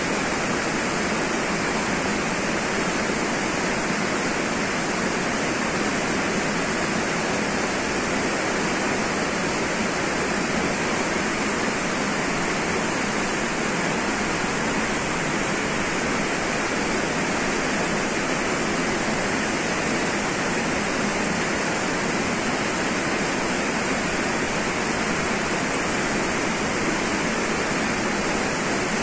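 Waterfall pouring into a rock pool: a steady, unbroken rush of water.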